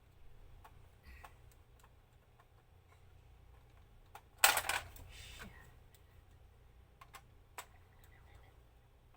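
Scattered light clicks and taps of a plastic toy being handled while its batteries are fitted, with one loud, brief scraping rustle about four and a half seconds in.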